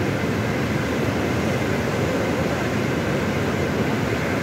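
Teesta river in flash flood: a steady, deep roar of fast, muddy floodwater.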